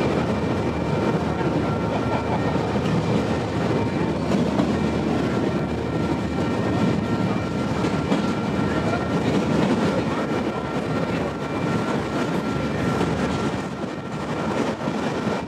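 Freight train of autorack cars rolling past close by: steady noise of steel wheels on rail, with light clacking and a thin steady high tone over it.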